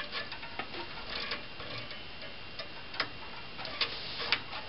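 Light, irregular clicks and taps of hands handling an opened desktop computer's metal case and parts.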